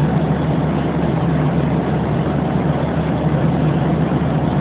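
Steady cabin noise of a jet airliner in cruise flight: engine and airflow noise with a low hum underneath.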